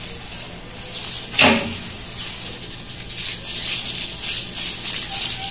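Water spraying from a garden hose onto dry dirt ground, a steady hiss. There is one brief, sharp, louder sound about a second and a half in.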